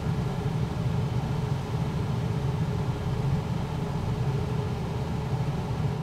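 Coleman Mach 10 NDQ 13,500 BTU rooftop air conditioner with its fan running on low: a steady low hum with an even airy hiss.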